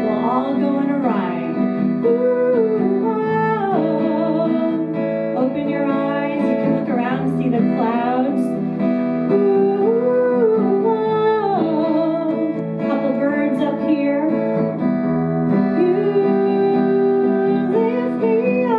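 A woman singing a song with held, gliding notes while playing an acoustic guitar.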